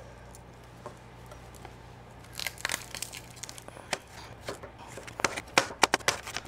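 Kitchen knife chopping garlic cloves on a cutting board: irregular sharp taps that begin about two and a half seconds in and come quicker and louder near the end.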